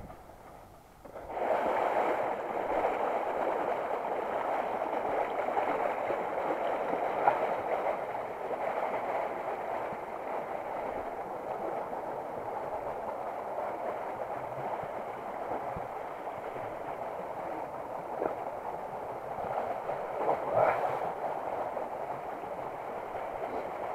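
Fast-flowing rocky mountain river rushing over stones, a steady rush that starts abruptly about a second in.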